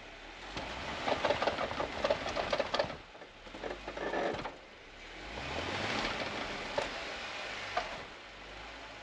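Jeep Wrangler JK on 37-inch tires trying to drive out of deep snow: the engine runs and revs as the tires churn and crunch through the snow, in two crackling spells in the first four and a half seconds, then a steadier engine note that rises about five seconds in. The Jeep is stuck, its solid front axle pushing against the snow.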